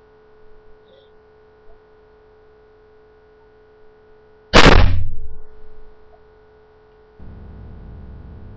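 A 1-inch-bore PVC pneumatic air cannon firing once about halfway through: a single sharp, very loud bang that dies away over about a second. A faint steady hum sits under it, and a steady low rushing noise starts near the end.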